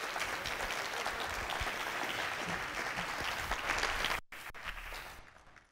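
Audience applauding steadily for about four seconds; after a brief break the applause goes on more weakly, fading, then cuts off.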